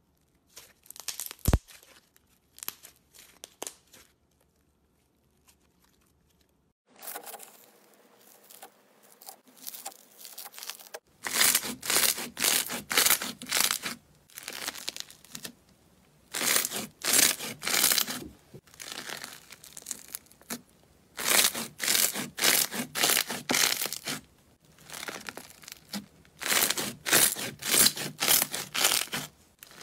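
Crunchy blue slime being pressed and squeezed by hand, crackling and popping in bursts of two to three seconds with short pauses between. A few softer crackles come first, from a soft cream-coloured slime being handled.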